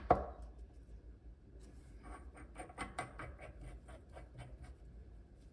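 Chrome crosshead tap handle being fitted by hand onto a new tap cartridge's splines. There is one sharp click at the start, then a run of small metal clicks and ticks, about four or five a second, over a few seconds.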